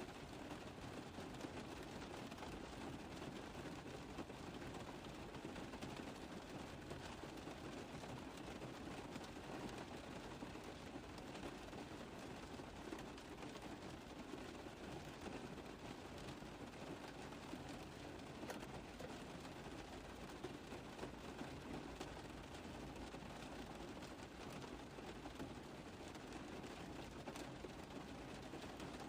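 Rain pattering on a car roof: a steady, dense stream of small drop ticks over an even hiss, with no let-up.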